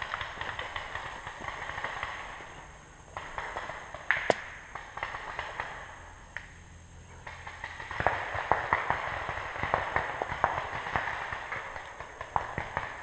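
Footsteps crunching and rustling through woodland undergrowth, easing off twice, with one sharp crack about four seconds in.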